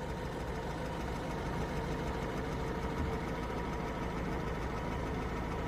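A vehicle engine idling steadily: a constant low hum with a faint, even whine above it.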